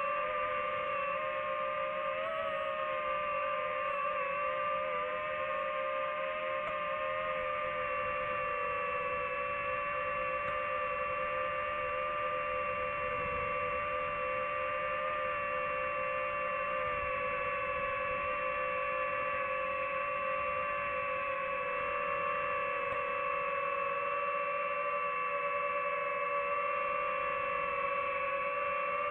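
DJI FPV drone's propeller motors whining steadily as it hovers and drifts slowly, a high-pitched hum that wavers only slightly in pitch.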